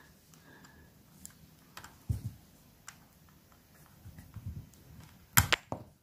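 Plastic parts of a DJI Mavic Air remote controller being handled and pried apart by hand: scattered small clicks and taps, with a soft knock about two seconds in and a sharper click near the end.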